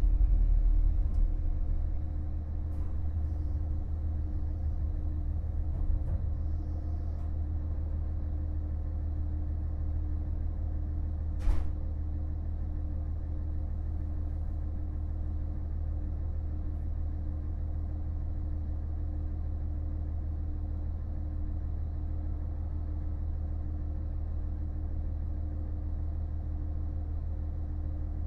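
KiHa 48 diesel railcar's engine running with a steady low rumble and a constant hum, a little louder in the first two seconds, with one sharp click about eleven seconds in.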